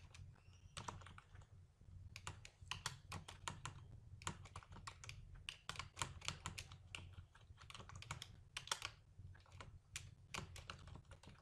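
Computer keyboard typing: quick, irregular key clicks in runs with short pauses, faint against a low steady hum.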